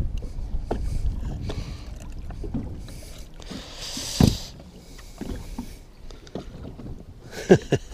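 Water splashing and lapping as a northern pike is handled in a landing net over the side of a boat. There is a splash and thump about four seconds in, and two sharp knocks near the end.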